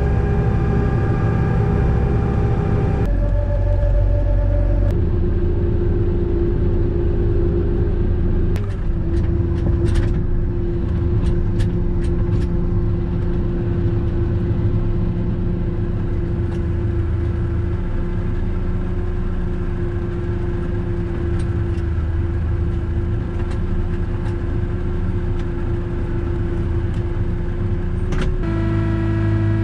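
Kubota tractor's diesel engine running steadily while towing a trailer, its even note shifting in pitch a few times. A handful of light clicks and knocks come through around ten seconds in.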